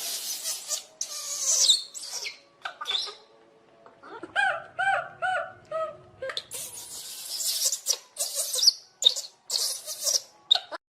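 Monkey calls: harsh, noisy screeches come and go throughout, and from about four seconds in there is a run of short, arched squeals in quick succession.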